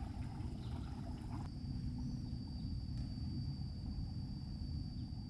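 Steady high insect trill over a continuous low rumble of outdoor ambience; a softer hiss stops about a second and a half in.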